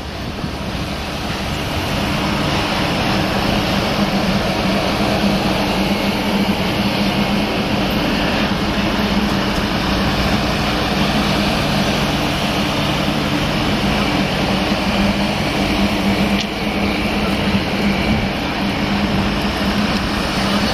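Vintage steel passenger cars of a train rolling past on the rails: a steady rumble and rattle of wheels and trucks with a low hum, growing louder over the first couple of seconds and then holding.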